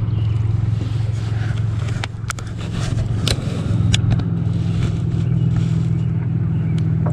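Boat motor running steadily with a low, even hum, with a few light knocks and clicks over it.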